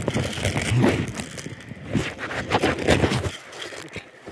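Rustling and knocking handling noise from a phone camera rubbing against clothing as its wearer moves, loud and irregular for about three seconds, then dropping away.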